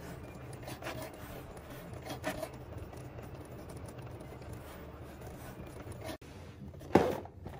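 Cricut Maker 3 cutting machine running: a steady low motor hum with faint rubbing and scraping as the carriage and blade work across the sticker sheet on the mat. The sound breaks off about six seconds in, and a short, louder sound follows near the end.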